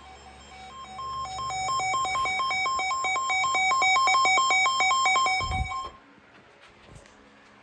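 Weather radio receiver's alert alarm: rapid electronic beeping that alternates between two pitches, about five beeps a second, for about five seconds, then cuts off. It signals that a warning (a Special Marine Warning) has been received. A low thump comes just before the beeping stops.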